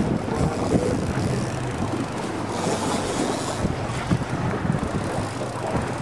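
Boat engine running with a steady low hum, under wind buffeting the microphone, with a stronger gust of hiss a little before the middle.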